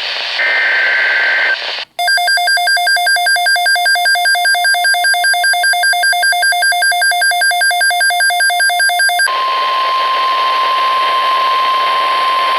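NOAA Weather Radio alert received over the air with static hiss: the tail of the SAME data burst, a short screech of paired tones, then rapid electronic alarm beeping at about five beeps a second for some seven seconds. From about nine seconds in, this gives way to the steady 1050 Hz weather radio warning alarm tone.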